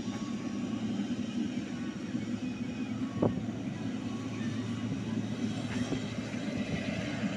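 Jet airliner's engines running as it rolls along the runway: a steady low drone with a faint high whine. A single short knock about three seconds in.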